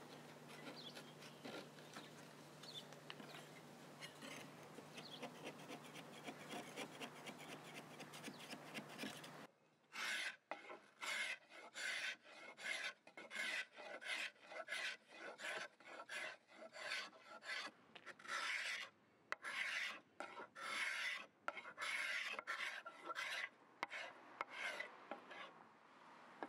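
Hand paint scraper pulled over and over across a wooden cabinet top, scraping off the old finish in about two strokes a second. Before it comes a stretch of fainter scraping from a small blade over a low steady hum.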